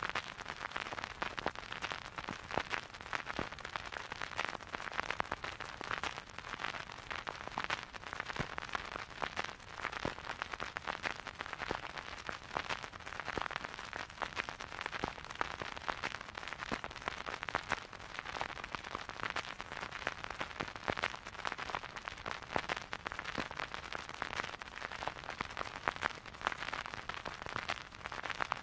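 Vinyl record crackle: a dense, even stream of small clicks and pops over a soft hiss as the stylus plays a spinning record, with no music.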